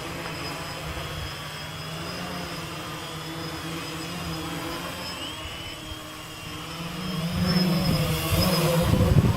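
Gaui 500X quadcopter's electric motors and propellers buzzing in flight. The pitch shifts as the throttle changes, and the sound grows louder about seven seconds in. Gusty wind noise rumbles near the end.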